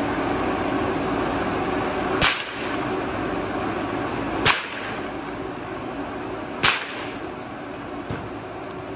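Three sharp whip cracks about two seconds apart, then a fainter snap near the end, over the steady drone of the electric blower fans that keep inflatable tube men upright.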